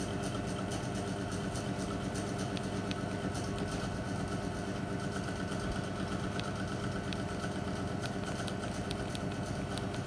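Steady low mechanical hum, with a few faint clicks from the keypad of a Nokia 5130 XpressMusic phone being pressed.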